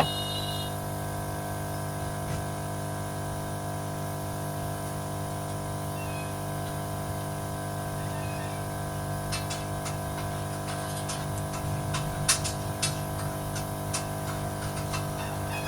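SMD hot-air rework station blowing steadily with an even hum while it heats a phone's USB-C charging port to melt the solder. Light clicks and ticks, from metal tweezers working the port, come in during the second half.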